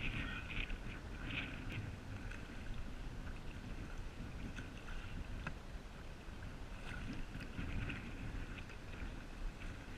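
Water splashing and dripping from paddling a small paddled boat, in short scattered bursts over a steady low rumble.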